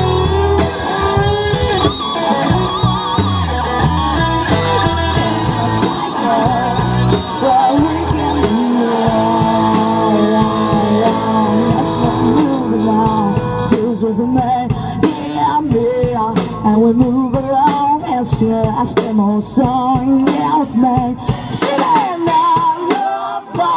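Live rock band playing: distorted electric guitars, bass and drum kit, with a singer's lead vocal over them.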